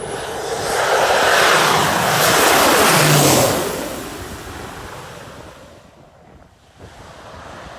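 Propeller aircraft passing low and close by on arrival: the engine and propeller noise swells quickly, sweeps down in pitch as it goes past, then fades away over a few seconds.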